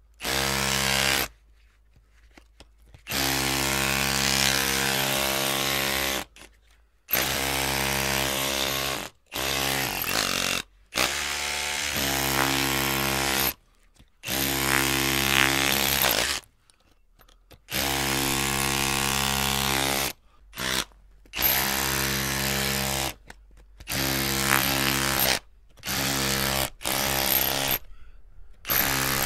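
Electric drill motor run in about a dozen bursts of one to three seconds, each starting and stopping sharply as the trigger is pressed and released. The motor holds a steady pitch within each burst.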